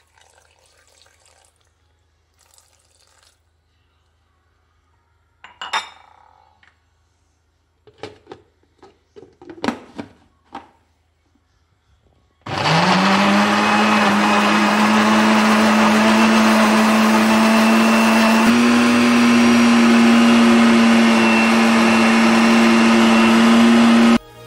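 A few faint sounds and sharp knocks and clicks, then a countertop electric blender starts about halfway through, its motor spinning up quickly to a loud steady hum as it purées kale, fruit and water into a smoothie. The hum steps up slightly in pitch partway through and cuts off near the end.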